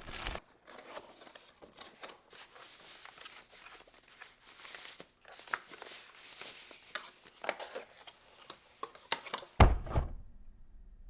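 Unboxing handling of a keyboard's packaging: irregular crinkling, tearing and rustling of cardboard and plastic wrapping, with scattered clicks, and one heavy thud near the end.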